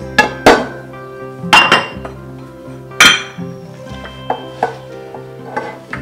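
Spoon knocking and scraping against a glass bowl as cooked ghee rice is scooped out, a series of sharp, irregular clinks. Background music plays underneath.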